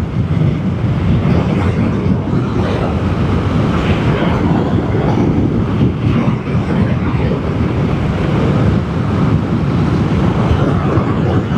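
Vespa GTS 300 scooter running at cruising speed, with heavy wind buffeting the microphone throughout.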